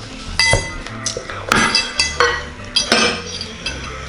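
Cutlery clinking against plates and dishes: a series of light, irregular clinks as cake is cut and served.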